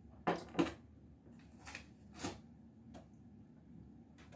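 Handling sounds of tableware and food: two sharp clicks or rustles close together just after the start, then a few fainter ones spaced out over the next few seconds.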